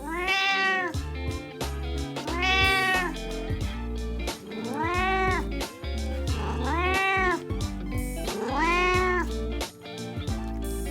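Elderly house cat meowing five times, about two seconds apart, each call rising and then falling in pitch, over background music.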